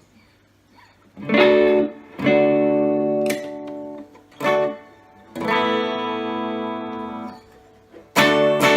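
Epiphone Casino hollow-body electric guitar played through a Vox AC15C1X valve amp on its Top Boost channel: several strummed chords, some cut short and some left to ring for a couple of seconds, with a faint steady amp hum in the gaps.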